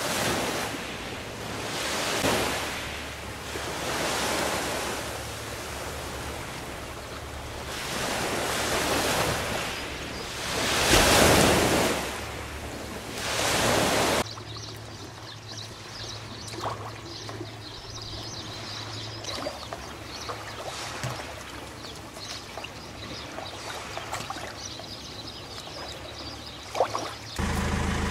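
Sea waves washing onto a pebble beach, surging and falling back every two to three seconds. About halfway through the sound cuts to a much quieter background with scattered small clicks, and near the end a steady low hum starts.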